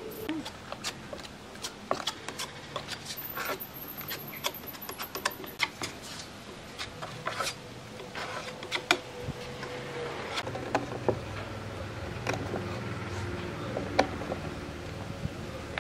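Small wooden blocks and a scraper being handled on a glued board: irregular light clicks and taps. A low steady hum comes in about two-thirds of the way through.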